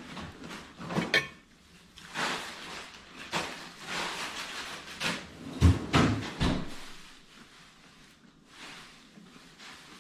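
Chewing crispy food, with a fork clinking and knocking on a plate. The loudest knocks come about six seconds in, as the fork is set down.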